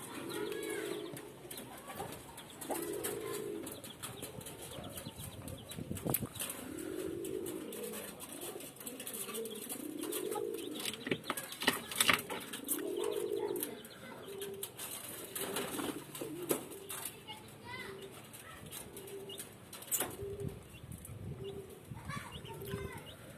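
Low bird calls: several drawn-out notes of about a second each that rise and fall in pitch, then from just past halfway short notes repeated a little over once a second, with scattered knocks and rustling.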